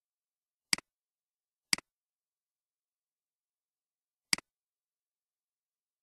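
Three computer mouse button clicks, each a quick press-and-release double tick, with dead silence between them.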